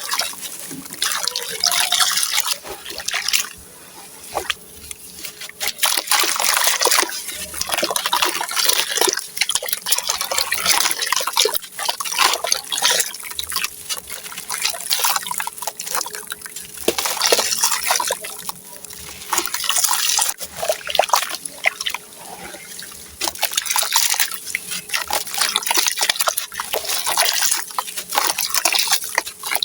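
Dry sand-cement chunks soaking up water and crumbling, a gritty crackle mixed with trickling water, coming in repeated spells a second or two long with short quieter gaps.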